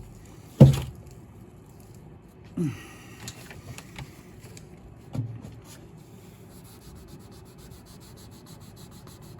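Sanding the shellac finish on a piano soundboard along the edge of a vinyl decal: a light rubbing that turns into a quick, even scratching of strokes in the last couple of seconds. A sharp knock comes about half a second in, with two softer thumps after it.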